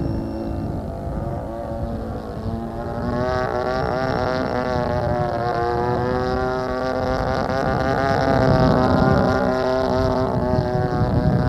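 DLE 20cc single-cylinder two-stroke gas engine of an RC airplane running in flight. Its pitch climbs as the throttle opens about three seconds in, then wavers up and down with throttle and manoeuvres. It grows louder about eight seconds in.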